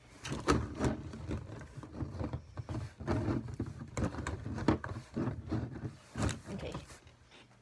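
Small plastic bottles of acrylic craft paint being shuffled around on a tabletop, knocking and clacking irregularly against each other and the table.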